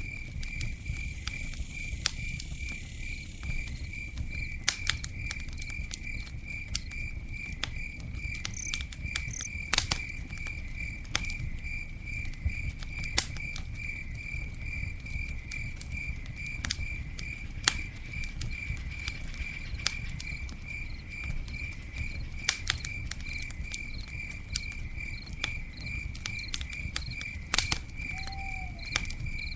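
Campfire crackling with scattered sharp pops over a low steady rumble, while a cricket chirps steadily in an even, rapid pulse.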